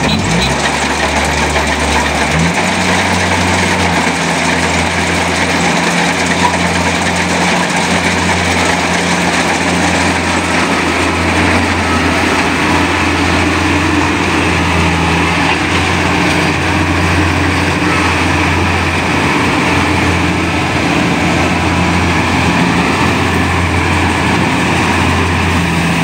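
Kubota crawler combine harvester running steadily under load while it cuts and threshes rice: a constant low diesel engine drone under a wide whirring of machinery. The engine's note shifts slightly about two seconds in.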